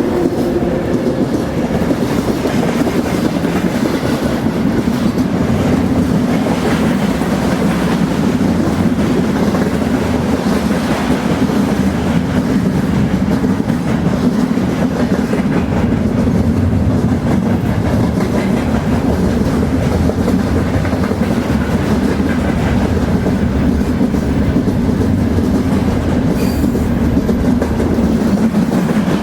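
A train rolling down the track, a steady, even rumble that is loudest in its low end.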